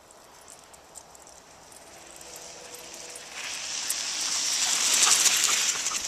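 Bicycle tyres and a dog's running paws crunching on a snow-covered road, faint at first, then swelling into a loud gritty hiss with many small crunches as the bike and dog pass close by, loudest near the end.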